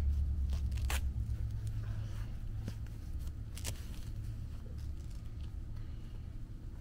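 Disposable diaper rustling and crackling as it is fastened on a baby monkey, with a couple of sharper crinkles about one and three-and-a-half seconds in, over a low steady hum.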